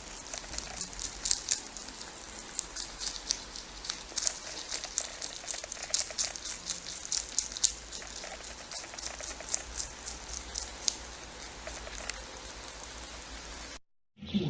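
Lop-eared rabbit chewing spinach leaves: rapid, irregular crisp crunching clicks, several a second. They thin out after about eleven seconds and the sound cuts out briefly near the end.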